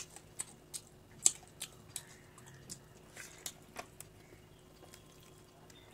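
A person chewing a mouthful of fish head in curry: scattered soft, wet mouth smacks and clicks, with one sharper smack about a second in.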